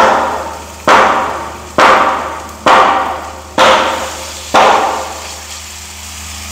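Six sharp knocks of a metal spoon, about one a second, each ringing briefly and dying away; they stop about four and a half seconds in. Oil frying in the pan runs faintly underneath.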